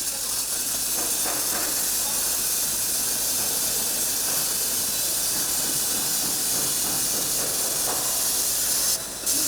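A steady, loud hiss of rushing air, strongest in the high range, that drops out for a moment near the end and then resumes.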